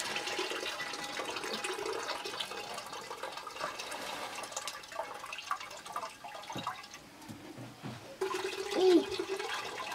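Washed rice and water poured from a metal pan into a cooking pot, with the wet grains splashing and clicking into the pot. Near the end, water is poured from a plastic jerrycan.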